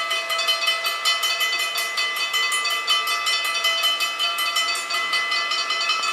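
Two mechanical level-crossing bells ringing with fast, even strokes, several a second, warning that a train is approaching.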